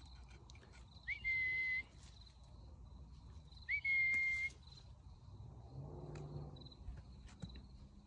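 Two short, clear whistle notes, each a quick upward slide onto a steady high pitch held for under a second, about two and a half seconds apart. Faint crickets chirp steadily underneath.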